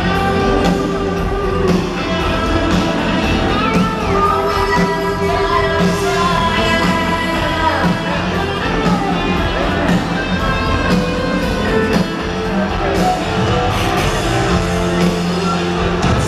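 Live rock band playing through a large PA: a woman singing lead over electric guitar and drums.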